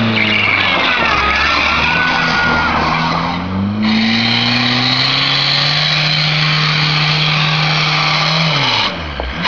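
1990 Volkswagen Jetta's 1.6 diesel engine revved hard and held at high revs while the wheels spin and slide on snow, over a steady hiss. The revs jump a few seconds in and drop away near the end.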